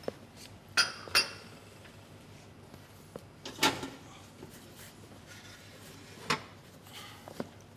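Hands mixing flour and oil in a plastic mixing bowl: faint handling with a few sharp knocks and clinks against the bowl, the loudest about a second in, then again around the middle and near the end.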